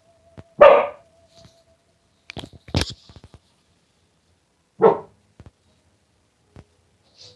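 A dog barking twice, loudly, about four seconds apart, with a few fainter clicks and short sounds between the barks.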